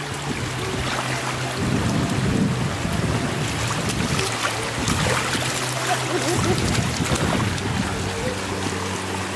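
Shallow floodwater running and splashing around wading feet, with wind buffeting the microphone.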